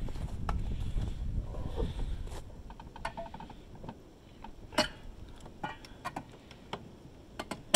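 Scattered metal clicks and clinks as exhaust springs and the stainless silencer are handled and hooked onto the snowmobile's exhaust pipe, the loudest a sharp clink about halfway through. A low rumbling noise runs under the first couple of seconds.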